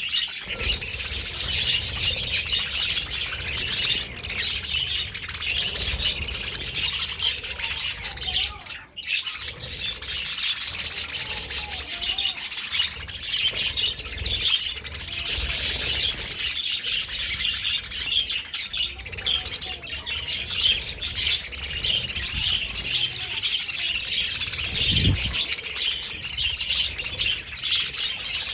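Budgerigars chattering and chirping without pause, many quick overlapping calls, with a brief lull about nine seconds in.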